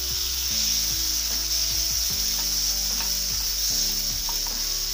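Chopped tomatoes with onions and green chillies sizzling steadily in hot oil in a non-stick kadai, stirred and scraped with a spatula.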